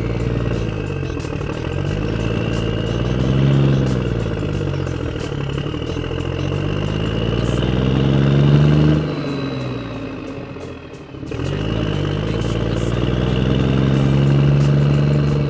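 A motor running, its pitch and loudness rising and falling in three slow swells, each a few seconds long, with a thin whine above it.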